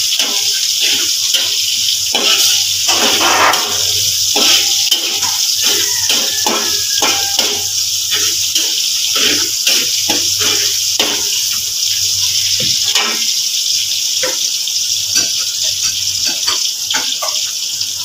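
Sliced shallots and garlic sizzling in hot oil in a wok, with a steady hiss. A metal spatula scrapes and clicks against the pan many times as they are stirred.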